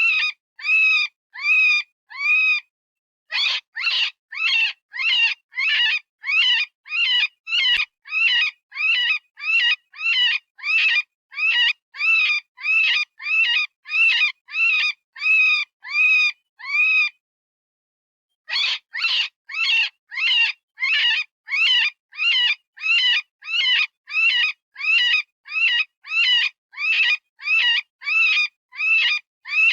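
Electronic rabbit distress call from animal-call software: a rapid run of short, high-pitched squeals, about two a second, each rising and falling in pitch. The run breaks off twice for about a second, a little under 3 seconds in and again near the 17-second mark.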